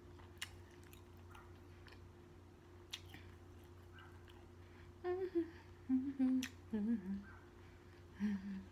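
A woman eating with her mouth full, chewing with a couple of soft clicks. Over the last few seconds she hums about four short closed-mouth 'mm' notes of enjoyment, each a little lower than the last.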